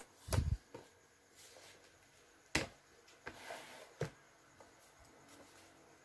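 Hardcover journal and paper being handled on a desk: a soft thump near the start, then a few scattered sharp taps with a short paper rustle between them.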